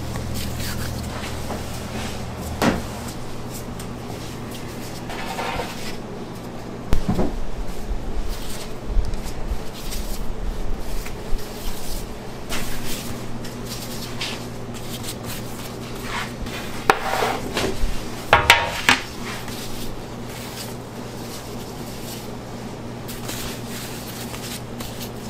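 Bakery kitchen work: scattered knocks and clatters of pans, trays and utensils being handled, loudest about a third of the way in and again near two-thirds, over a steady low machine hum.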